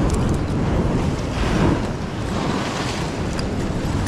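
Ocean surf washing against a rock ledge, with a wave surging up about a second and a half in, and wind rumbling on the microphone.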